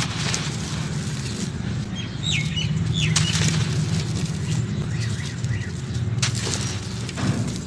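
Hands crushing molded cylinders of dry, dusty soil, the clumps crunching and crumbling apart with grit falling, and a few sharper cracks as chunks break. A few short bird chirps come in about two to three seconds in.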